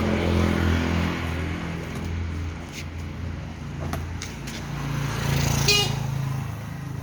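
A motor vehicle engine running nearby, its note dropping then rising again about five seconds in. A few sharp clicks and taps come in the middle.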